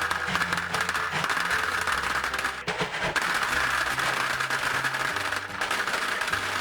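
Gumballs pouring into a gumball machine: a dense, continuous clatter of many small hard balls.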